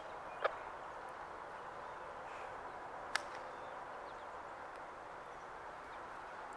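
Faint steady outdoor background hiss, broken by two sharp clicks, one about half a second in and another just after three seconds.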